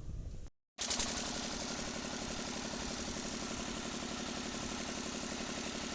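Stationary diesel water-pump engine running steadily with a fast, even knocking beat, starting after a brief dropout about half a second in.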